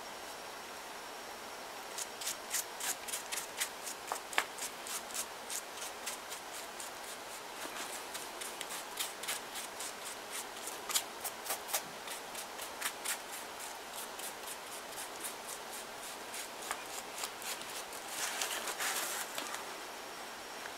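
Paintbrush dabbing and stroking paste onto a paper-mache figure: a long irregular run of quick light taps and brush strokes, a few a second, with a denser rustle of paper near the end.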